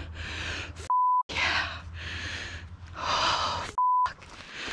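Censor bleeps: two short steady beeps, about a second in and near the end, blanking out swearing. Between them, excited breathy whispering.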